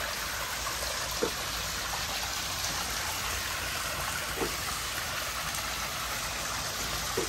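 Backyard koi pond waterfall running: a steady splash of falling water, with a couple of faint ticks.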